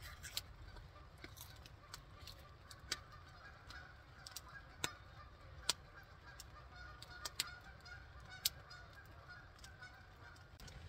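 A flock of geese honking faintly, with scattered sharp ticks and pops over it.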